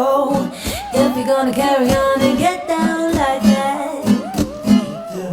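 Pop song with a sung melody line over a backing track with guitar.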